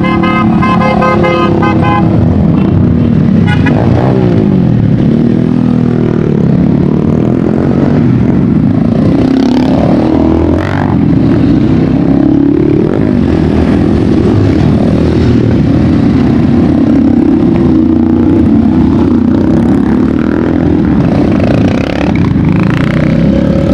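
Engines of a group of small-displacement sport motorcycles (200 to 400cc) running and revving as the convoy moves off, one machine after another passing close. A horn beeps for the first two seconds.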